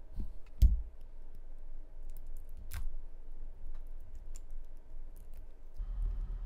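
Scattered light clicks and clinks of a Glycine Combat Sub's stainless-steel link bracelet being handled while its protective plastic is peeled off, with a louder knock about half a second in. A low rumble of handling noise comes in near the end.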